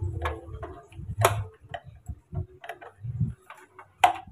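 Irregular clicks and knocks of a part and its wires being handled and fitted into the metal chassis of a BMB power mixer, with two louder sharp clicks, about a second in and near the end.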